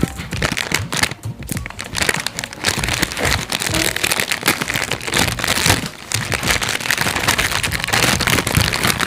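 Slime being worked, giving dense crackling and crinkling with many small pops, over background music.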